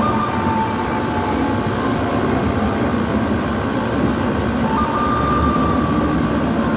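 Carrier air conditioner unit running with a steady mechanical whirr, and a faint high whine that comes and goes twice.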